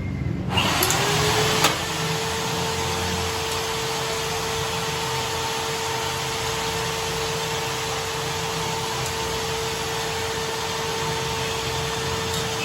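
Lathe's electric motor starting up: a whine rises in pitch for about half a second, then settles into a steady hum over a hiss. There is a sharp click shortly after it starts.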